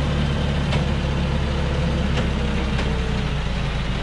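Diesel engine of a loaded medium truck running steadily at low speed as the truck creeps down a steep dirt slope, with a few faint clicks.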